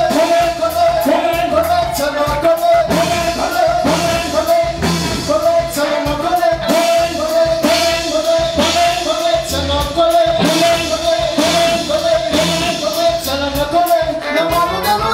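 Live band playing upbeat dance music with a steady drum beat, a repeating melodic line and a singing voice.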